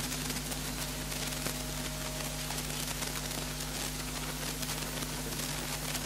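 Steady electrical hum with hiss from the microphone and amplifier system, with no recitation.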